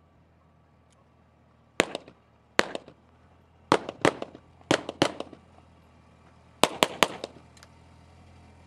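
About nine pistol shots in quick groups of two and three, each sharp crack trailing a short echo. Beneath them a utility vehicle's engine runs with a low steady drone that grows louder toward the end as it approaches.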